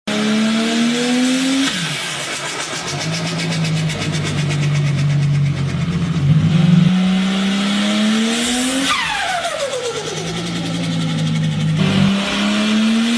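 Turbocharged car engine accelerating in several pulls, its pitch climbing and then dropping at each lift-off. A little before 9 s a high turbo whistle sweeps steeply down, with turbo flutter as the throttle closes.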